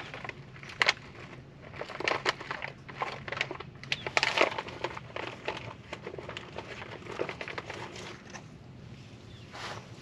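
Foil freeze-dried meal pouch crinkling as it is handled, in irregular bursts of crackly rustles and clicks.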